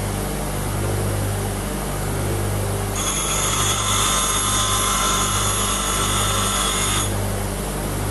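Bench grinder running with a steady, pulsing low hum. From about 3 s in to about 7 s, an HSS twist drill is pressed against the grinding wheel and adds a high-pitched ringing whine as the back relief behind the cutting edge is ground.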